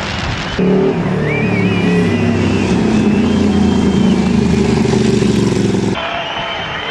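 Racing motorcycle engine running at high revs, its pitch rising slowly. It starts abruptly about half a second in, after a rushing noise, and stops abruptly about a second before the end, giving way to noise with faint high whistling.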